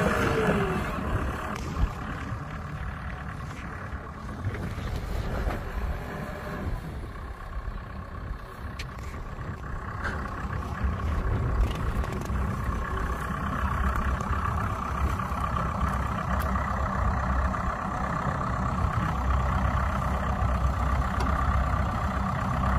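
Small Komatsu crawler dozer running and moving on its tracks: a steady diesel engine note with drivetrain noise, growing a little louder with a steady whine joining about halfway through.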